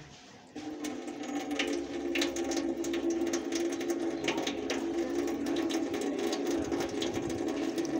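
Water from a foot-pedal-operated tap pouring into a stainless steel sink. It starts suddenly about half a second in, then runs steadily with a low ringing hum and scattered splashy clicks.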